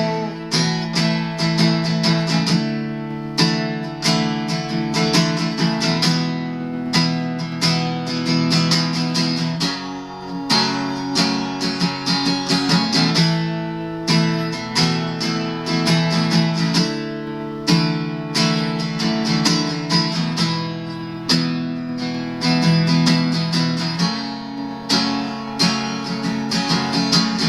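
Acoustic guitar strummed in a steady rhythm, an instrumental break between sung verses of a country-style song.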